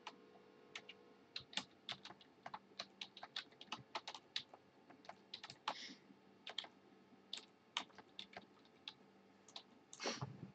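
Typing on a computer keyboard: quiet, irregular keystrokes clicking in quick runs and short pauses, with one brief louder noise near the end.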